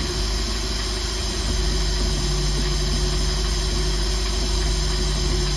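Mercruiser inboard engine idling roughly and barely staying running, its low engine note sagging early and then steadying. Its Thunderbolt ignition is firing through a wide-gapped inline spark tester, and the owner believes its weak spark is why it runs so rough.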